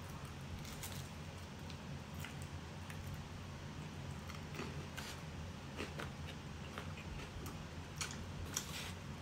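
A person eating fried chicken and rice: quiet chewing with scattered small clicks and taps, some from a metal spoon in a foam takeaway box, over a low steady hum.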